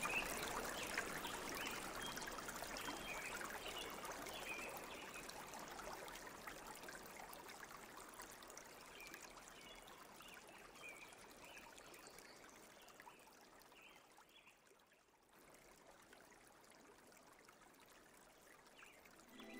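Running water of a stream trickling, fading slowly until it is nearly gone about fifteen seconds in, leaving only a faint hiss.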